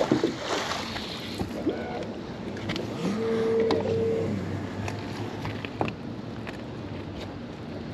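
Water washing against a small boat, with scattered knocks and clicks from handling on board, and a short steady tone a little after three seconds in.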